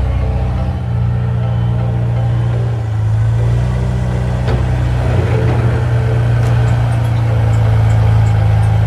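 Engine running steadily with a deep, even drone, with a single sharp click about four and a half seconds in.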